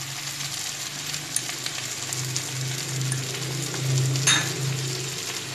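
Slotted metal spatula stirring diced potatoes and kidney beans frying in a non-stick kadhai, with a light sizzle, over a steady low hum. About four seconds in, the spatula clinks sharply against the pan.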